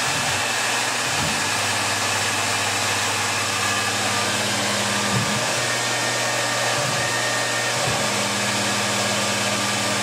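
Tormach RapidTurn CNC lathe running with its chuck spinning: a steady rushing whir over a low hum, with no sharp cutting noises.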